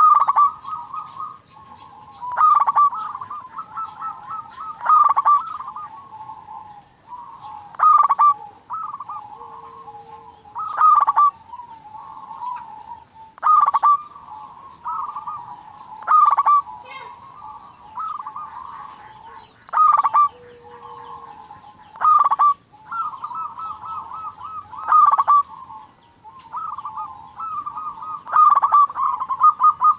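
Zebra doves (perkutut) cooing: rapid, trilled, staccato coo phrases repeated about every two to three seconds.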